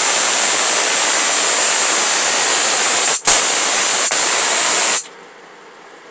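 Homemade 15 kV high-voltage spark gap firing continuously across a bank of foil-wrapped bottle capacitors: a loud steady hiss with a thin high whine. It breaks off briefly about three seconds in with one sharper crack, then cuts off suddenly about five seconds in.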